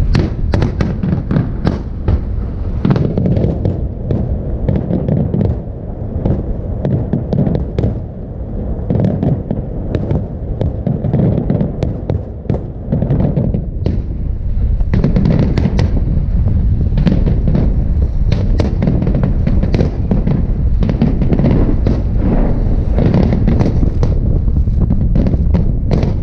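Salute fireworks display: a dense, continuous run of crackling and popping shell bursts over a steady low rumble. It grows steadier and denser in the second half.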